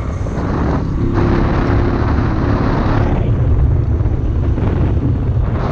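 Honda TMX 155 motorcycle's single-cylinder engine running at riding speed, with wind noise over the microphone that is heavier for the first few seconds.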